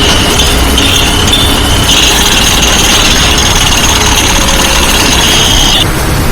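Heavy construction machinery running with a dense low rumble, over a high steady whine that cuts off suddenly near the end.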